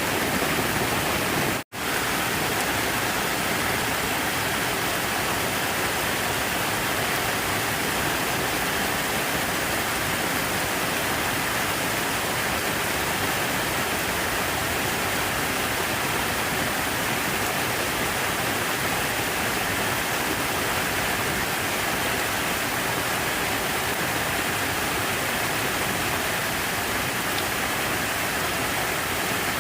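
Steady rush of falling water, an even hiss with no rhythm or change, that cuts out for a split second about two seconds in.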